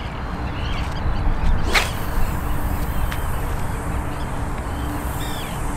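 A spinning rod swishing through the air in a single cast about two seconds in, followed by a faint high hiss that fades out near the end. Birds chirp faintly in the background.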